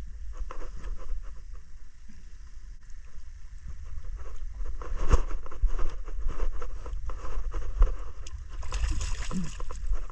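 Small fishing boat on the water: steady low rumble with water sloshing against the hull and scattered knocks, and a brief burst of hiss about nine seconds in.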